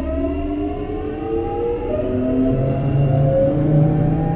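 Hitachi GTO-VVVF inverter and traction motors of a Sotetsu 8000 series train, heard on board while it accelerates: several whining tones rise in pitch together, and the pattern shifts to a new set of rising tones about two seconds in, over the low rumble of the running train.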